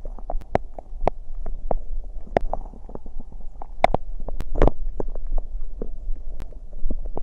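Human stomach gurgling after drinking a carbonated cider: irregular sharp pops and squelches over a low bubbling rumble, the loudest pop a little past halfway.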